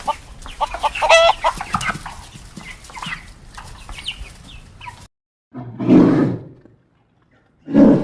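Chickens clucking, a dense run of short calls, which stops abruptly about five seconds in. After a short silence come two short, low calls from another animal, about two seconds apart.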